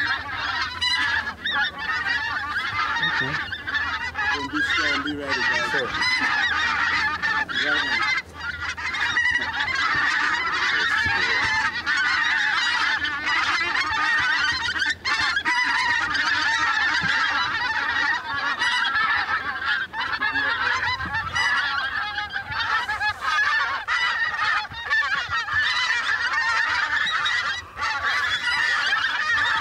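A large flock of pink-footed geese calling overhead, many voices overlapping into one unbroken chorus.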